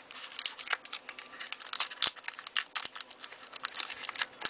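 Foil wrapper of a trading-card booster pack crinkling and tearing as it is pulled open by hand, a dense run of irregular sharp crackles, the loudest about two seconds in.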